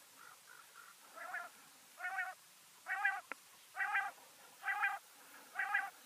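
Recorded common quail calls of the kind played as a lure to bring quail into a net. A few faint soft notes come first, then six short wavering calls about one a second, growing louder over the first few, with a sharp click just after the third.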